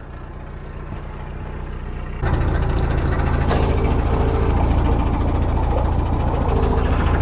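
Narrowboat diesel engine running steadily, stepping up clearly louder about two seconds in and holding there.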